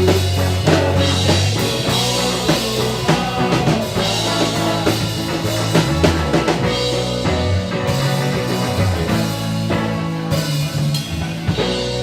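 Rock music played by a band with a drum kit and bass, the bass line moving under steady drum hits.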